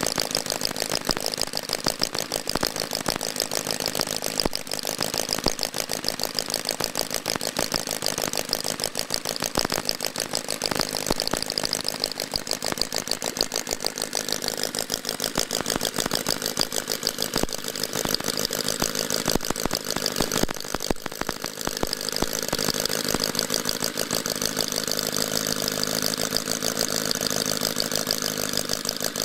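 A 25cc horizontally opposed four-cylinder four-stroke model engine (L C Mason's Mastiff) running steadily with a fast, even patter of firing pulses. Its note shifts about halfway through.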